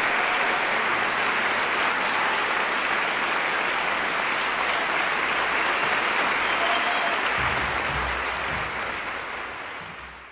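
Concert audience applauding steadily, the clapping fading out near the end.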